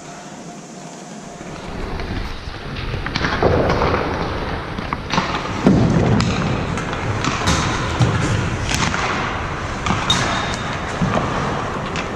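Ice hockey practice on the rink, starting about two seconds in: skates scraping the ice and pucks striking sticks and the boards, heard as a string of irregular sharp knocks and thuds.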